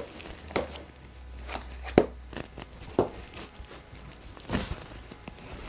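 Rummaging on and around a desk while searching for a notebook: a series of sharp knocks and clatters of objects being moved about, the loudest about two seconds in.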